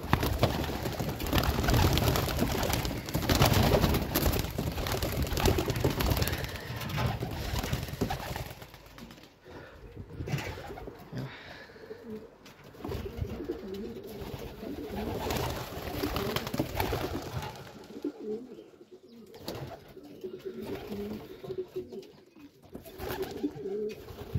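Domestic pigeons at their loft cooing, low repeated calls heard mostly in the second half. The first eight seconds or so are filled with louder rustling and clattering noise.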